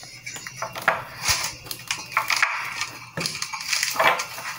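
Plastic cling film crinkling and crackling as it is stretched and pressed over a container of food, in a run of irregular crackles.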